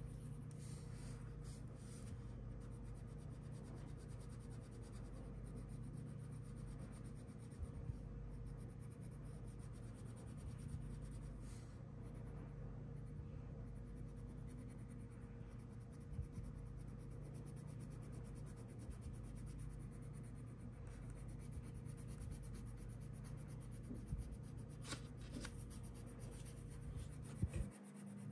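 Wax crayon rubbing back and forth on paper while colouring in, faint, over a steady low hum.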